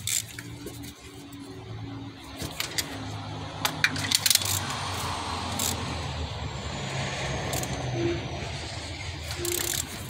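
Metal clinks and clicks of a ratchet, extension and socket being worked on the spark plugs, with a quick cluster of clicks about four seconds in. A low droning hum runs underneath.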